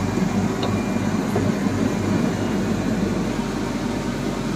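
Steady low mechanical drone with a hum in it, unchanging throughout, like a blower or ventilation running.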